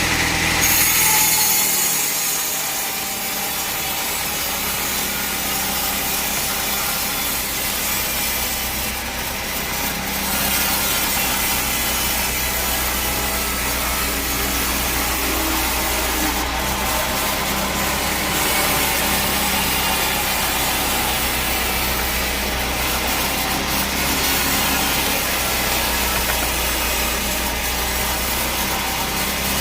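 Bandsaw sawmill blade cutting lengthwise through a teak log: a steady sawing hiss over the mill's continuous low hum.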